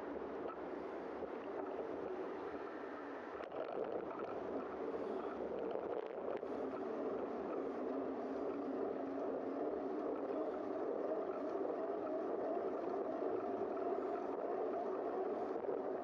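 Steady, muffled rolling noise of a bicycle ridden along a paved bike path: tyres on asphalt and wind over the bike-mounted camera.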